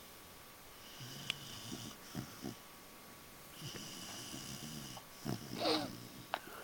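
Five-month-old pit bull puppy snoring in her sleep: two long, raspy snoring breaths, then a brief louder sound near the end.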